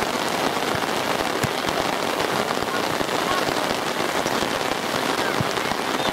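Steady rain falling, a dense even hiss with many small drop ticks and a few sharper hits.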